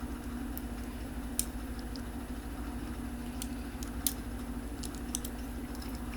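Small plastic Lego bricks clicking a few times as pieces are handled and pressed together, over a steady low hum.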